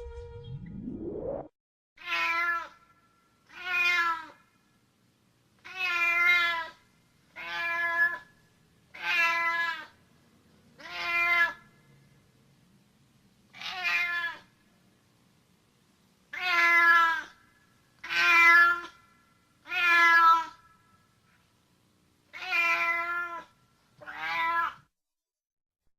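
Domestic cat meowing: about a dozen separate meows, each about a second long, spaced one to three seconds apart with silence between.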